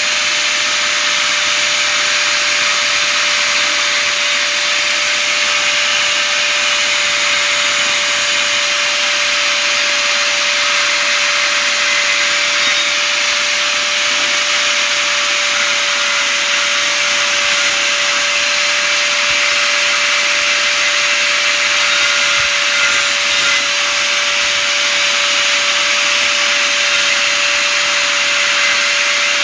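Angle grinder running at a steady speed, a constant high whine over an even hiss.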